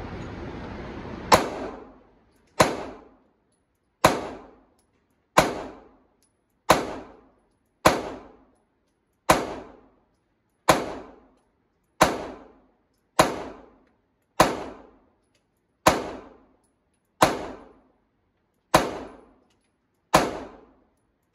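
Compact 9 mm pistol fired one deliberate shot at a time on an indoor range: about fifteen shots, roughly a second and a half apart, each with a short echoing tail.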